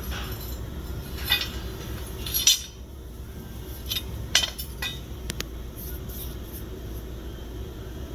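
A few light clinks and knocks, spaced irregularly, over a low steady rumble; the loudest come about two and a half and four and a half seconds in.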